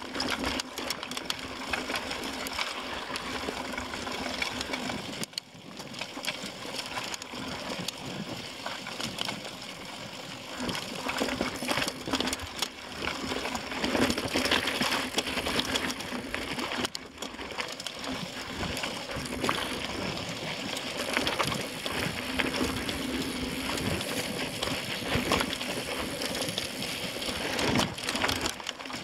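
Mountain bike rattling over rocky singletrack: tyres crunching on gravel and stones, with constant clicks and knocks from the bike jolting over rocks.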